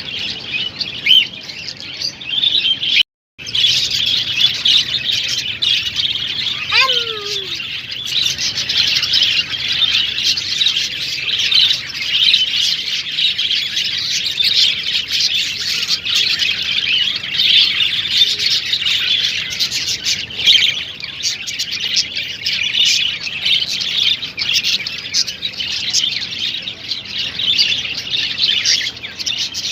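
A crowd of small ornamental cage birds chirping and twittering together in a dense, continuous chorus, which breaks off briefly about three seconds in.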